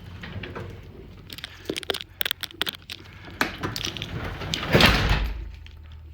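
Sectional garage door and its opener hardware being worked: a run of sharp clicks and knocks, then a louder, longer rattling burst about five seconds in.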